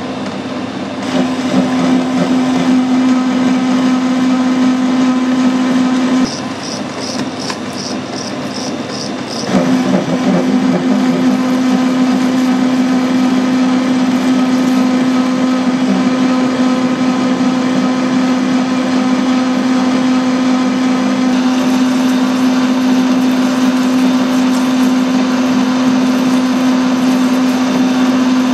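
Metal lathe running with a steady motor and gearbox hum. Near the middle it goes quieter for about three seconds, with a light regular ticking, then runs again at full hum. A higher hiss joins over the last third.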